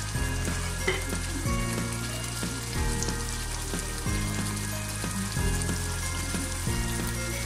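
Hilsa fish steaks frying in oil in a pot, a steady sizzle and bubbling. Under it runs soft background music whose low chords change about every second and a half.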